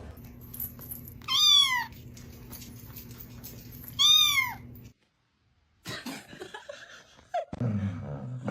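A cat meowing twice, two loud drawn-out meows about two and a half seconds apart, each rising and then falling in pitch.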